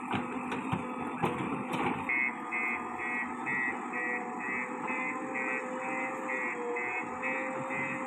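JCB 3DX backhoe loader's diesel engine running under load while the rear bucket digs, with a few sharp knocks in the first two seconds. From about two seconds in, a high beep repeats steadily about two and a half times a second over the engine.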